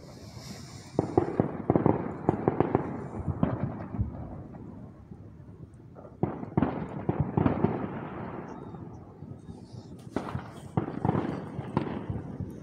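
Fireworks crackling and popping in three bursts of rapid sharp pops, starting about a second in, about six seconds in and about ten seconds in.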